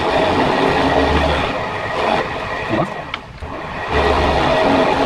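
Vertical milling machine's end mill cutting hex flats on a round part, sped up, the cutting noise swelling and easing in surges every couple of seconds as passes are made. The spindle runs at a low belt speed, and the cut is a little chunky.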